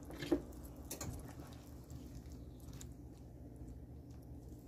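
A few soft taps and clicks of a spatula in a nonstick pan of watery fish curry, the clearest just after the start, over a steady low hum.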